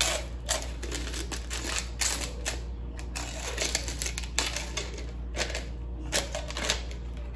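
Irregular clicks, taps and scrapes of a margarita glass being rimmed: the rim rubbed with lime and worked against a saucer of salt and sugar.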